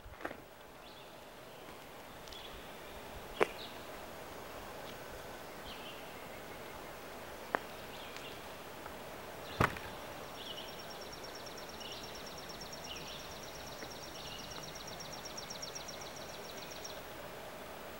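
Outdoor ambience with birds chirping now and then and a rapid high trill lasting about seven seconds from about ten seconds in. Three sharp clicks stand out, the last the loudest.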